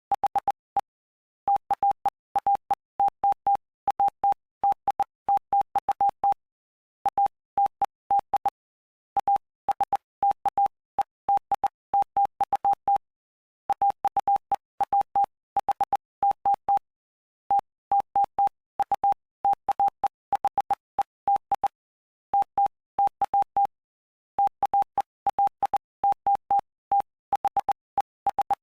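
Morse code sent as a steady mid-pitched tone keyed on and off in dots and dashes, with short gaps between letters and longer pauses between words. It spells out the text of Mark chapter 5 for code-reading practice.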